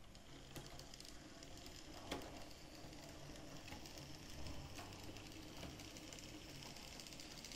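An OO gauge Mainline J72 tank locomotive running slowly and quietly: its small electric motor whirs steadily, with a few light clicks of the wheels on the track, the sharpest about two seconds in.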